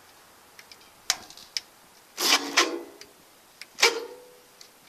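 Sharp clicks and two louder metallic clanks, the second ringing briefly, as the 1963 Gravely LI walk-behind tractor's controls are worked for an electric start. The engine neither cranks nor runs, because the start button is not pushed in far enough.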